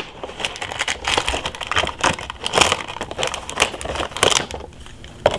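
Packaging crinkling and rustling as hands rummage through a toy box, with irregular crackly scrunches throughout.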